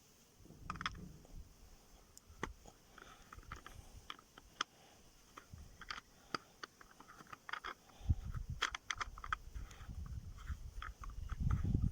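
Irregular sharp clicks and light metallic knocks of a wrench and parts being handled while a Lada Granta steering rack is unscrewed and taken apart. The clicks grow denser with a low rumble of handling from about eight seconds in.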